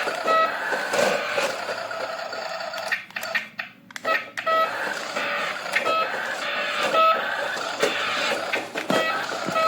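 Battery-powered electronic toy running: short repeated beeps, about one a second, over a steady mechanical whirring, which drops out briefly about three to four seconds in.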